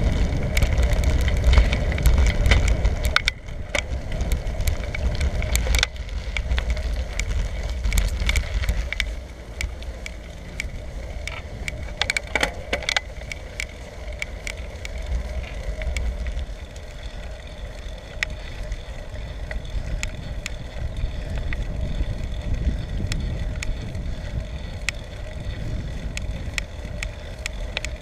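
Riding noise from a bicycle-mounted camera: wind buffeting the microphone with a low rumble, over tyre and road noise and frequent small rattling clicks. The rumble is loudest at first and eases after about three seconds, then again after about nine.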